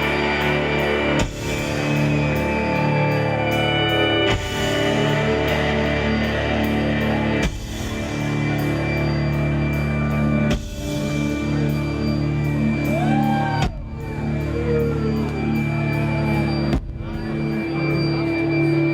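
Live rock band playing an instrumental passage with electric guitars and drums, the chords changing about every three seconds, with bending lead-guitar notes in the middle.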